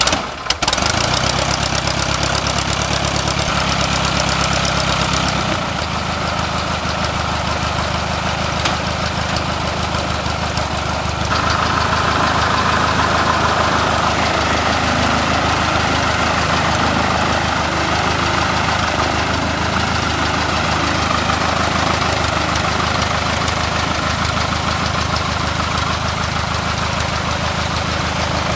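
Continental A-65 four-cylinder air-cooled aircraft engine catching on a hand-propped start, then idling steadily with the propeller turning. The engine speed drops and settles to a lower idle about five seconds in.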